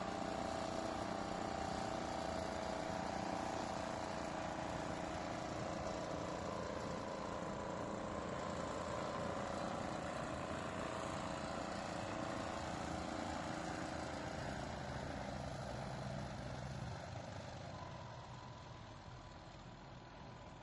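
A 6 HP Briggs & Stratton single-cylinder four-stroke engine, converted to drive an outboard, running steadily, then fading over the last few seconds.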